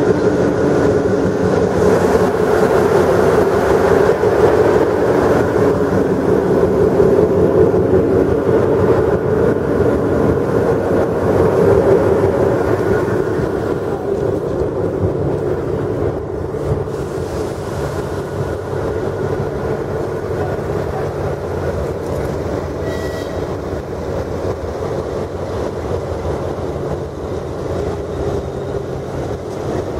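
TE3 diesel locomotive's 2D100 opposed-piston two-stroke diesel running steadily while it warms up after starting. It is loud and close inside the engine compartment, then somewhat quieter from about 13 seconds in, heard from outside the locomotive.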